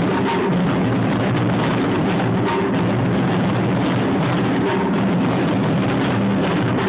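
A taiko drum ensemble playing: a dense, continuous stream of drum strokes at a steady loudness.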